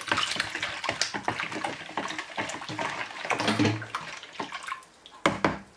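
Water pouring from a plastic bottle into a plastic bowl of pickle brine while a wooden spoon stirs it, splashing and sloshing; the splashing dies away near the end, followed by a short knock.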